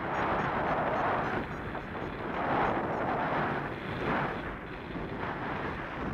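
Wind rushing over the microphone in paraglider flight, a steady rush that swells and eases every second or so.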